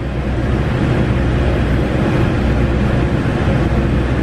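Diesel engine of a JR Shikoku KiHa 40 railcar under power, heard from inside the passenger cabin as a steady low drone while the train pulls away from a station stop. The sound grows louder at the start, then holds steady.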